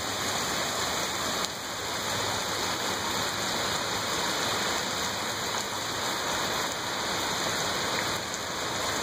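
Steady rain falling on a wet concrete driveway, an even hiss with no breaks.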